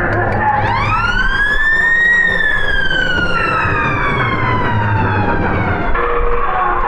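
A siren winding up quickly to a high pitch about half a second in, then slowly winding down over the next few seconds, with a steady din underneath.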